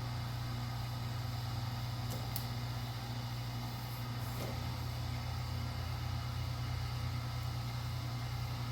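A steady low mechanical hum, with a few faint clicks about two and four seconds in.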